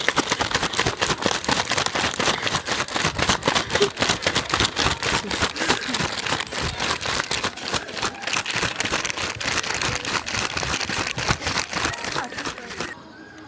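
Storm sound effect: a loud, dense crackling and rustling noise standing in for the wind and waves shaking the boat, cutting off suddenly near the end.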